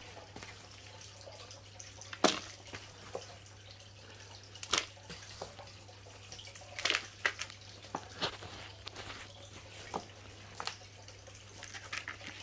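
Potting mix with perlite being scooped by a gloved hand and dropped into a plastic planter: scattered rustles and sharp ticks, a second or two apart.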